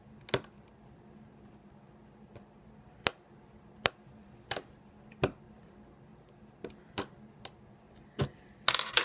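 Lock pick working the pins of an ASSA 700 lock: a string of sharp single clicks, several about 0.7 s apart in the middle, and a short scraping rustle near the end.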